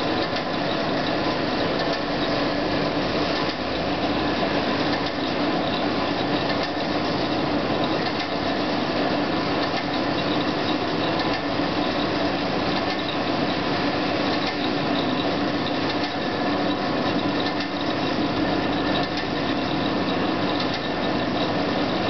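Marvel Series 8 Mark 1 tilt-frame vertical band saw running free under power with no workpiece, its variable-speed drive turned up to a higher speed. It gives a steady, even mechanical running sound that does not change.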